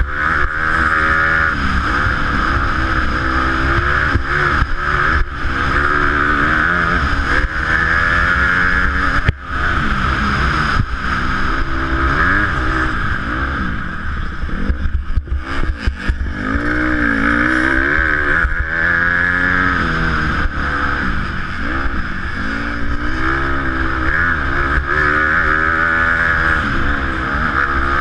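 Honda motocross bike engine revving hard and dropping back over and over as it is shifted and throttled, heard from a helmet-mounted camera with wind rush on the microphone. The pitch climbs and falls repeatedly, and it briefly drops off the throttle about fifteen seconds in.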